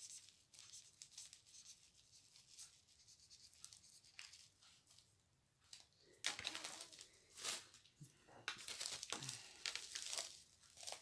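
Diamond painting kit packaging being handled: faint light clicks and rustles at first, then louder crinkling and rustling from about six seconds in.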